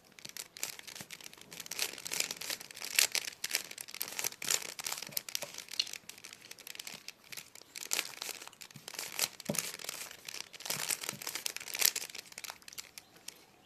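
Rubik's cube being turned by hand: a run of irregular plastic clicks and rattles as its layers are rotated.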